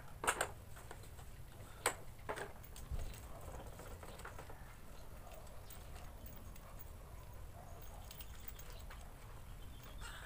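Four sharp knocks and clicks within the first three seconds as the tubular frame of a baby rocker is handled during assembly, then only faint room noise with a few small ticks.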